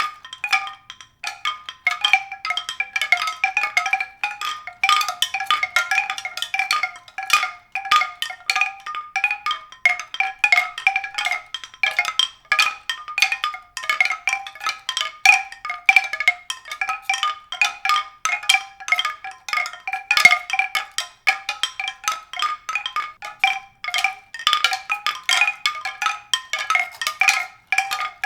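High-pitched mallet-percussion music: a dense, continuous stream of quick, short struck notes with no bass.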